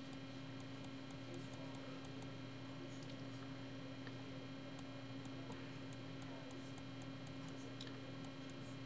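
Steady low electrical hum under faint, irregular clicks of a computer mouse, a few a second.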